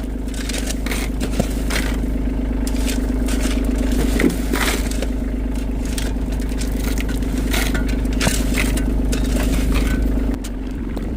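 Skid steer engine running steadily, with a shovel scraping and crunching into loose gravel in irregular strokes. The engine sound drops in level about ten seconds in.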